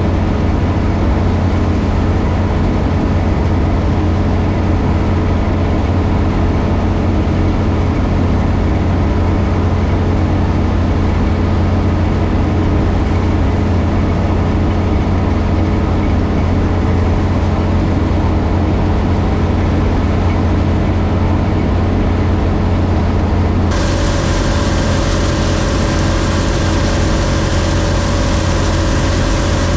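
John Deere 3300 combine running steadily while harvesting corn, a deep, even engine hum. About three-quarters of the way through the sound changes abruptly, turning brighter and hissier, with a new steady whine over the hum.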